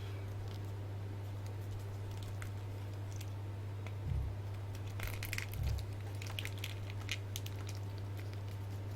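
A steady low hum under faint handling noise: soft rustles, small clicks and a couple of soft thumps, as a plastic action figure is handled, mostly in the middle.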